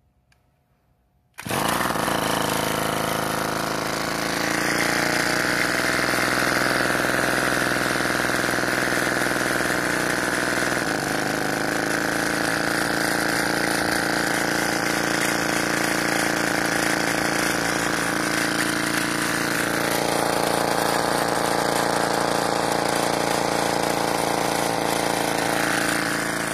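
Small two-stroke brush cutter engine running steadily at speed, cutting in abruptly about a second and a half in after near silence. It is belt-driving a car alternator that is putting out about 14 V DC, so the engine is working under a charging load.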